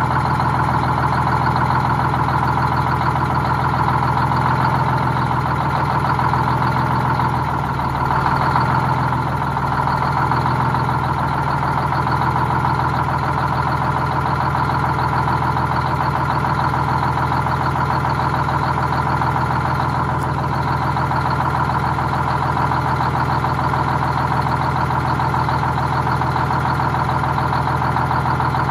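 Detroit Diesel 6-71 two-stroke inline-six diesel in a bus idling steadily.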